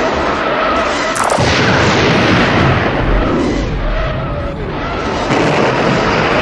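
Sci-fi space-battle sound effects for the Gunstar fighter: layered blasts and explosions over a dense, continuous din with wavering electronic tones. A sharp crack about a second in is followed by a heavier low boom.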